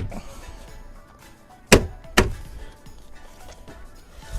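Two sharp thumps about half a second apart near the middle: a hand striking the truck's door card to snap its trim clips back into the door.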